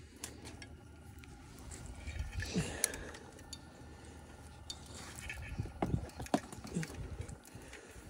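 Quiet handling of trailer-connector wires being pulled apart by hand: a few soft clicks and rustles over a low, steady wind rumble on the microphone.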